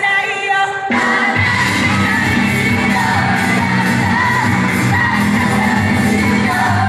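Live J-pop idol song: young women singing in Japanese over a loud pop backing track. The full backing with bass comes in about a second in.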